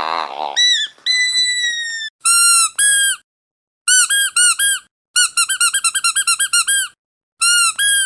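Squeaky dog toy squeezed over and over. A short buzzy squeak comes first, then two long squeaks that sag slightly in pitch, then short squeaks in twos and threes, a fast run of about a dozen, and another pair near the end.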